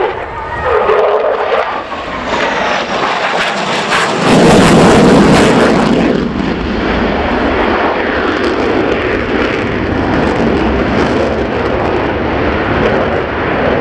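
Polish Air Force F-16C's Pratt & Whitney F100 jet engine running in afterburner through a 9 g turn. The loud jet noise swells to its loudest about four seconds in, then holds steady as the fighter passes.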